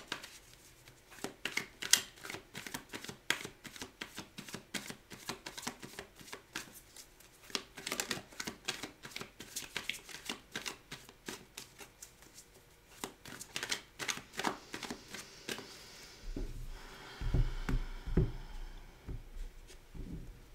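A deck of tarot cards being shuffled by hand, a long run of quick papery clicks and flaps. Near the end come a few dull low thumps.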